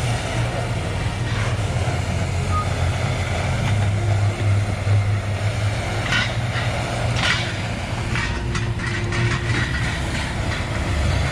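Heavy vehicle engine running steadily, a low drone, with a few sharp knocks and clicks partway through.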